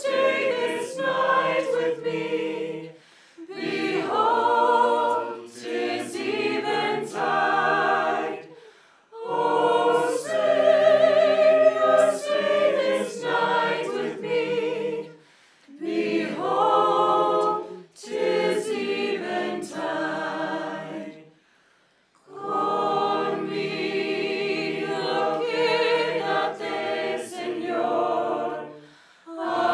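Mixed choir of men and women singing a hymn a cappella, in phrases a few seconds long separated by short pauses, with a brief near-silent break about two-thirds of the way through.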